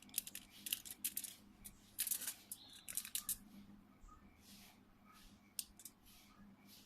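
Irregular small clicks and short scratchy scrapes of hand tools on wires and a phone's parts during a soldering repair, busiest in the first three seconds and sparser after.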